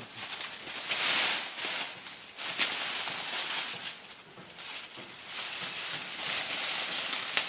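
Tall grass leaves swishing and rustling in uneven swells as a person pushes through on foot, with one brief sharp crack about two and a half seconds in.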